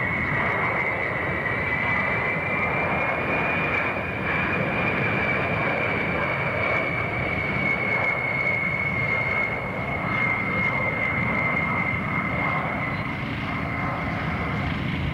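Boeing B-52H Stratofortress's eight TF33 turbofan engines in a slow low flypast: a steady jet roar with a strong high whine that rises a little over the first few seconds, then slowly falls as the bomber passes and draws away.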